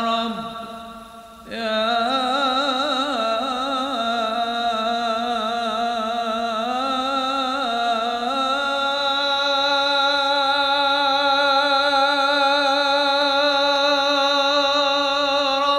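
A single voice chanting a devotional Arabic nasheed in long, wavering melismatic phrases. It breaks off briefly about a second in, then returns and holds one long note with vibrato through the second half.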